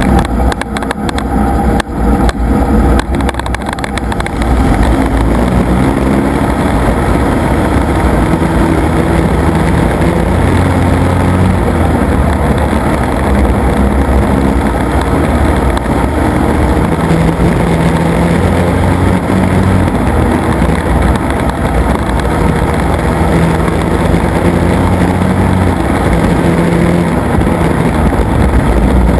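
Engine of a Chevrolet Monte Carlo factory stock dirt-track race car, heard loud from inside the car under racing. Its pitch rises and falls repeatedly as the driver gets on and off the throttle. There are some rough knocks and jolts in the first few seconds.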